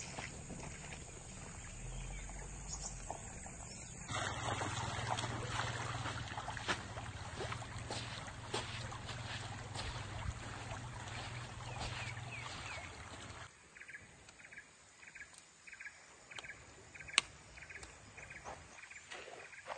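Flowing stream or river water, its level jumping at two cuts. In the last few seconds it is quieter, with a run of short repeated chirps and one sharp click.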